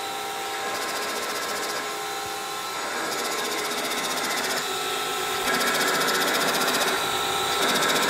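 Compressor side of a turbocharger spun by a large electric motor, running steadily at low speed with a high whine over a rush of air. It is not surging, and it gets louder in steps about five and a half and seven and a half seconds in.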